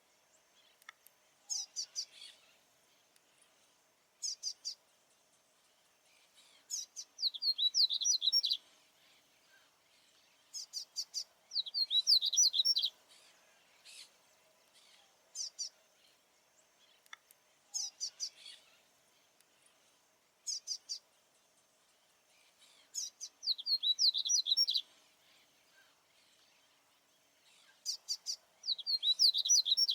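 A male papa-capim seedeater singing over and over. Short bursts of high, quick notes come every couple of seconds, and among them are several longer, fast, rippling phrases of about a second and a half.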